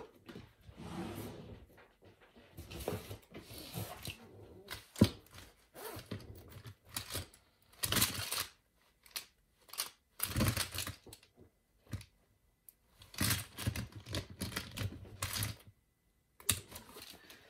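Someone rummaging through desk stationery supplies in search of a pen: scattered clicks, light clatter of pens and small objects, and rustling, with a sharp knock about five seconds in.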